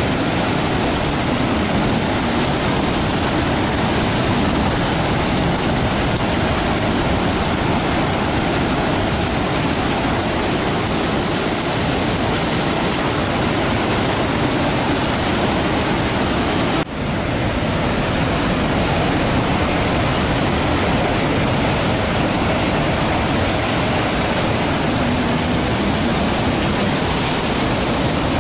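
Heavy surf from a rough sea breaking over rocky shore: a continuous rushing noise with no separate wave crashes standing out. It breaks off for an instant about seventeen seconds in.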